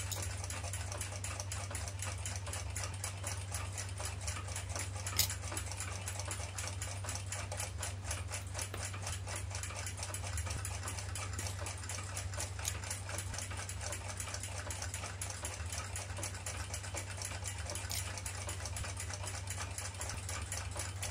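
Clock movement ticking fast and evenly, several ticks a second, over a steady low hum. A sharper single click, about five seconds in, stands out from the ticks.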